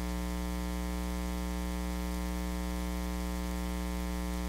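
Steady electrical buzz with no voice coming through: a Comica CVM-VM10 II shotgun microphone plugged into a Canon camcorder picks up only hum, and fails to record any audio on this camcorder.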